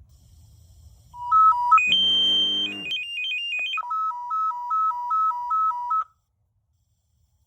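Unication G5 pager's speaker sounding fire-dispatch alert tones for a structure fire: alternating high-low beeps, a harsh buzzing tone about two seconds in, a quick high-pitched warble, then a steady two-tone high-low alternation that cuts off sharply about six seconds in.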